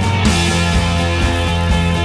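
Rock music with a steady beat and sustained bass notes; the sound turns brighter shortly after the start.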